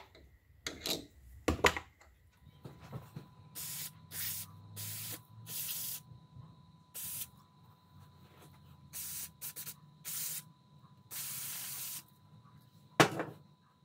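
Aerosol can of mass airflow sensor cleaner hissing in about nine short squirts, the last one the longest, flushing dirt out of a diesel engine's boost pressure sensor. A couple of knocks come in the first two seconds, and a sharp knock comes near the end.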